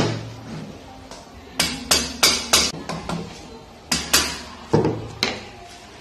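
About eight sharp metallic knocks and clinks in small groups, of metal valve parts and hand tools being struck or set down.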